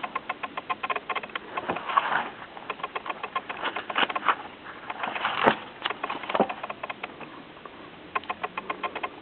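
Paperback book being handled and its pages turned: rapid light clicks and taps, with a few longer papery swishes about two, four and five and a half seconds in.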